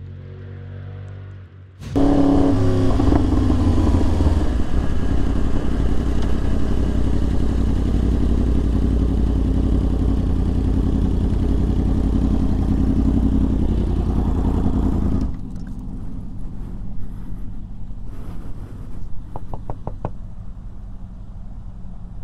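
Sport motorcycle engine heard from the rider's camera while riding in traffic, with wind rushing over the microphone. It cuts in suddenly about two seconds in, and its pitch rises as the bike accelerates. About fifteen seconds in it drops to a quieter steady idle as the bike comes to a stop, with a few light clicks near the end.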